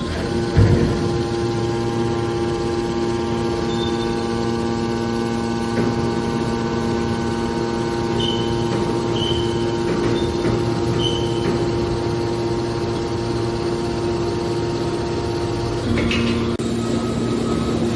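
Hydraulic scrap-metal baler's motor and pump running with a steady hum. There is a knock shortly after the start and a few short high squeaks in the middle, and the hum shifts to a different tone about two seconds before the end.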